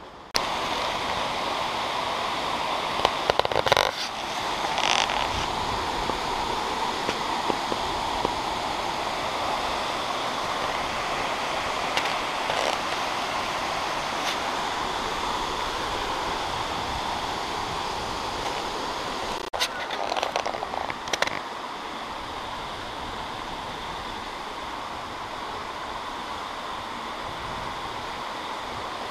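Steady rushing of a waterfall, the Crabtree Falls cascade, with a few short knocks about a quarter of the way in and again about two-thirds through.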